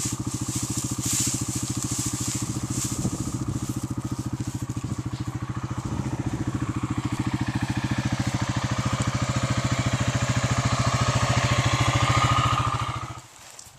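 An engine running steadily at idle, an even low pulsing that stops suddenly about a second before the end.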